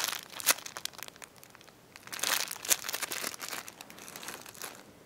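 Crinkling and rustling with scattered small clicks as a squishy toy is handled, busiest a little past the middle.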